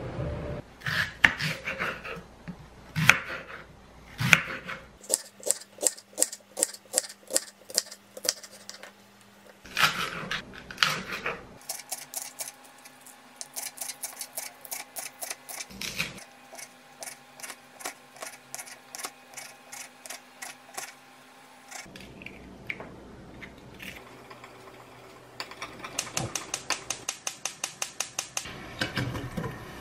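Kitchen knife chopping green onion on a wooden cutting board: runs of quick, even taps, about four to five a second, with short pauses between runs.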